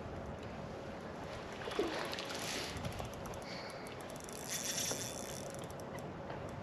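Shimano Sahara 2500 spinning reel working against a hooked fish, with faint irregular clicks, over steady wind and water noise around a small boat.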